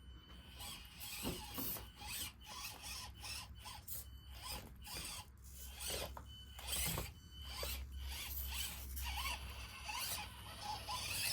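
Axial Deadbolt mini RC crawler driving over the track, its small electric motor and gears whining in short, irregular stop-and-go bursts as the tyres scrape and crunch over sand and rocks.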